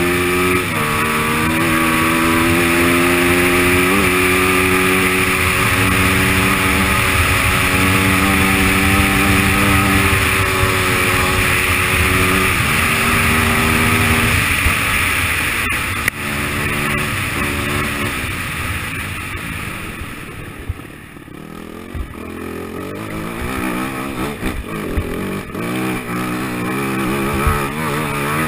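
AJP SPR 310 enduro motorcycle's single-cylinder engine pulling steadily under load on a gravel track, holding revs for long stretches with a few shifts in pitch, over wind and tyre noise. About twenty seconds in, the throttle is eased off and the engine goes quieter, then the revs pick up again, rising and falling unevenly.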